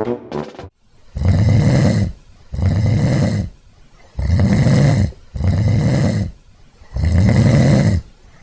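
A person snoring loudly: five snores, each about a second long, with short gaps between them.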